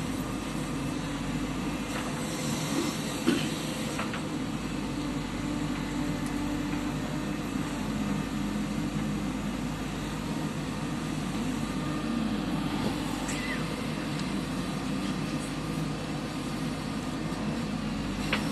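Diesel engine of a backhoe loader running steadily at work, with a single sharp clunk about three seconds in.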